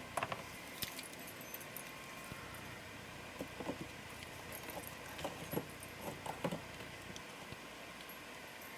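Small plastic craft-paint bottles being handled and set into a wooden organizer rack: scattered light clicks and clinks, several in quick succession, over a faint steady hum.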